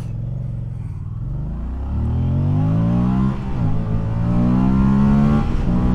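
Moto Guzzi Stelvio's 1042 cc transverse V-twin accelerating hard from a standstill in sport mode for a 0–100 km/h run. The revs climb, drop at an upshift about three and a half seconds in, climb again, and drop at a second shift near the end.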